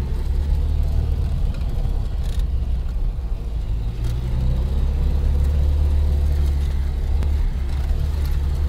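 UAZ-469 off-road vehicle's engine running steadily while driving: a deep, even drone with a faint steady higher tone above it.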